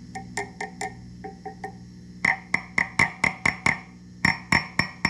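Preamp tubes of an Orange TH30 valve amp being tapped in quick succession with a wooden stick, over the amp's steady hum. Each tap comes through the speaker as a click with a short bell-like ring, softer at first and louder from about two seconds in. The ringing is the sign of a microphonic tube.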